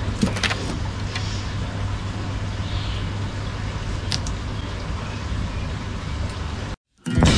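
A few light clicks and knocks of small plastic betta fish containers being handled and set back in place, over a steady low background hum and rumble.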